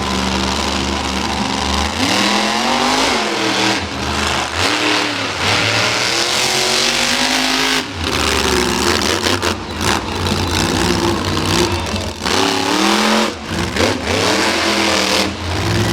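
Monster truck engine revving hard, its pitch repeatedly rising and falling with quick throttle lifts and blips, settling to a steadier lower run at the start and near the end.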